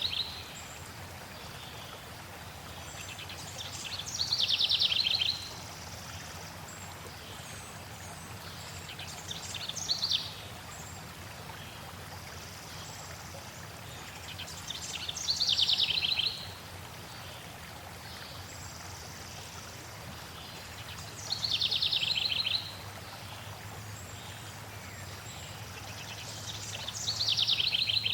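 A songbird repeating the same short song five times, about every five to six seconds, each phrase ending in a rapid high trill, over a steady rush of flowing water.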